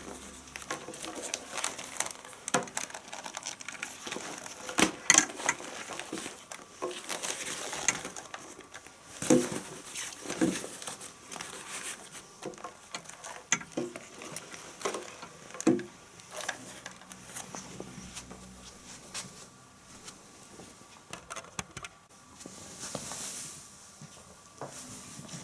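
Handling noises: irregular clicks, knocks and crinkling of plastic parts and packaging being handled, with no dryer motor running.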